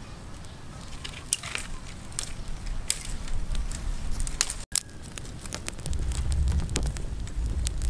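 Small fire of dry twigs crackling and popping with scattered sharp snaps as sticks are fed onto it. A low rumble builds in the second half.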